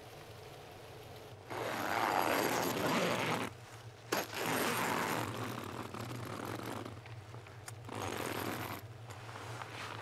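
Snowstorm hissing against the tent fabric, in surges that start and stop abruptly several times.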